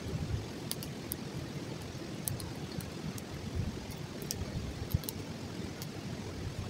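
Open wood fire crackling, with a few scattered sharp pops, over a steady low rumble.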